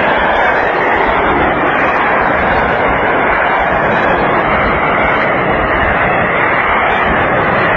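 Salvo of rockets from a multiple rocket launcher, the rocket motors making a continuous loud rushing roar as the rockets fire one after another and fly off.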